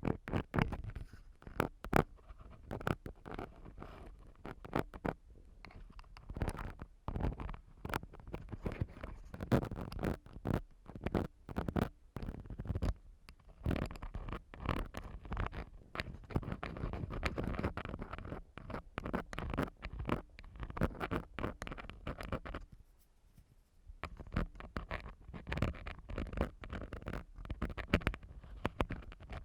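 Ear-cleaning tools scraping and rubbing against a microphone in close, irregular strokes, with a deep rumble under the scratching and a short pause about three-quarters of the way through.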